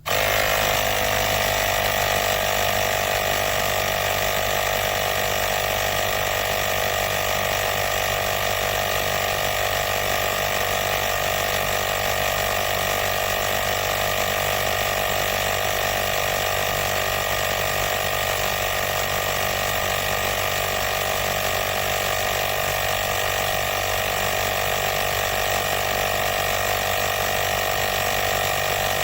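Wistrue battery-powered mini air compressor running steadily as it inflates a bicycle tyre to a preset 4 bar, then shutting itself off automatically when the pressure is reached, so the sound cuts off suddenly at the end.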